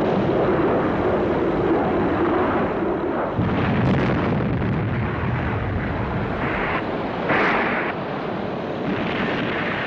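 Sound-effect storm of wind and rain with an aircraft engine, then the airliner crashing onto the rocks: a sudden heavy rumble about three seconds in, with further bangs a little later and again past seven seconds.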